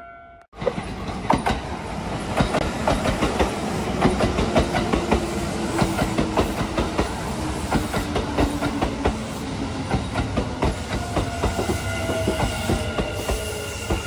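Kintetsu limited express electric train running along the platform track: a dense run of wheel clacks over rail joints and points above a steady running rumble, starting suddenly about half a second in. A low tone falls in pitch through the middle, and higher squealing tones come in near the end as the train comes in.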